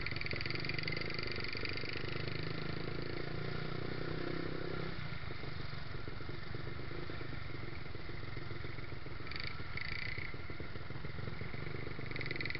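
Yamaha YZF-R125's single-cylinder four-stroke engine running at low speed as the bike creeps through traffic, picked up close by a camera mounted on the bike. The engine note changes about five seconds in, and two short higher tones come about nine and ten seconds in.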